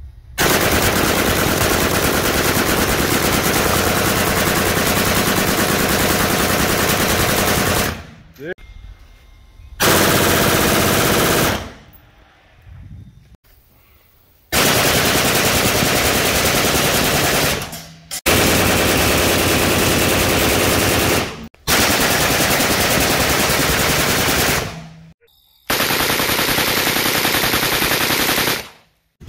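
Full-auto fire from AK-pattern rifles, some fed from drum magazines: six long sustained bursts, the first about seven seconds and the rest two to three seconds each, with short breaks between them.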